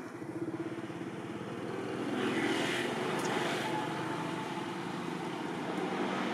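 Steady engine drone with a fast pulsing beat, growing louder about two seconds in and then holding steady.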